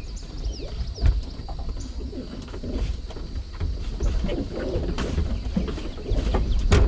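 Mitsubishi L300 minibus being pushed by hand across grass to bump-start it on a flat battery: a low rumble of the van rolling, with scattered knocks and clicks and a sharp knock near the end. No engine is heard catching.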